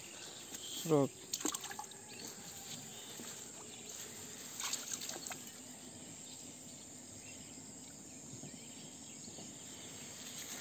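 Hands working in shallow muddy water, with light splashes and sloshing around a second in and again near the middle, over a faint steady chirring of insects.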